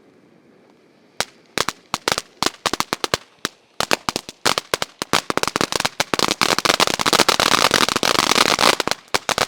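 Firework fountain crackling: scattered sharp cracks begin about a second in, come faster and faster, and merge into a dense continuous crackle from about six seconds on.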